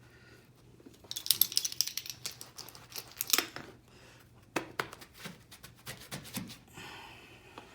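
Loop pile carpet being pressed and worked by hand into hot seam tape during a row repair, making a run of quick scratchy clicks and crinkling that is densest in the first half.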